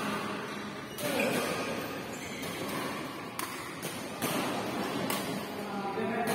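Badminton rally: rackets striking the shuttlecock in sharp smacks about once a second, five hits in all, ringing briefly in a large hall.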